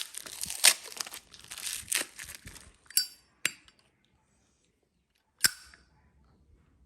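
Plastic wrapping crinkling as it is handled, then three sharp metallic clinks with a brief ring, like small metal lighters being picked up or set down.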